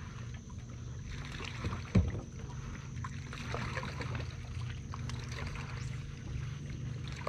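Steady low hum and water noise on a bass boat, with one sharp knock about two seconds in.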